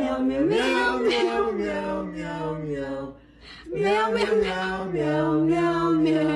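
A man singing slow, long-held notes without accompaniment, in two phrases with a short break about three seconds in.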